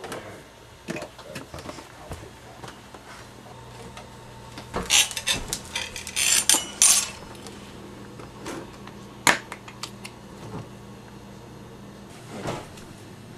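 Dishes and cutlery being handled at a table: scattered knocks, then a run of sharp clinks and clatters about five to seven seconds in, and a single sharp knock about nine seconds in.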